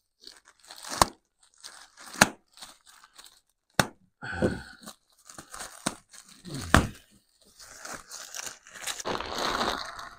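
Plastic poly shipping mailer being torn open by hand, with sharp snaps of the plastic giving way among rustling. Near the end comes a longer crinkling as the plastic wrap around the contents is handled.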